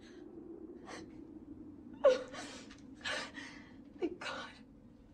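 A person gasping and breathing hard: a faint breath, then from about two seconds in four or five sharp, breathy gasps, over a low steady hum.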